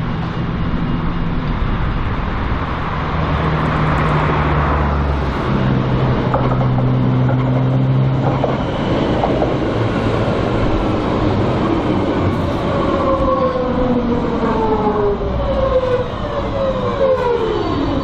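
GVB line 51 light-rail tram rolling in and braking to a stop, its electric drive humming low. Over the last few seconds its whine falls in pitch as it slows.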